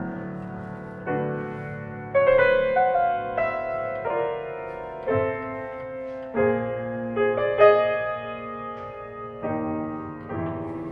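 Piano music: slow chords, each struck and left to ring out and fade, a new one about every second.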